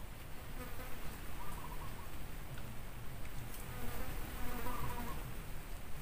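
A flying insect buzzing, coming and going, over a low steady outdoor background.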